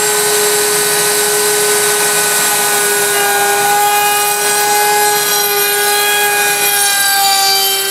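Table-mounted router running with a 3/4-inch round-nose bit cutting a stopped finger groove into a strip of wood fed along the fence. A steady whine that dips slightly in pitch about three seconds in.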